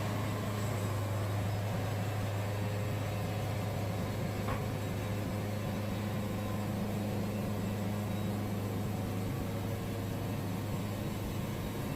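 Wood-Mizer band sawmill running steadily, its band blade sawing through a log to cut out a knot.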